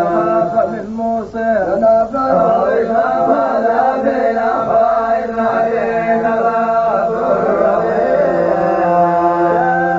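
A man's voice chanting Quranic verses in melodic tajweed recitation, drawing out long held notes with ornamented turns between them.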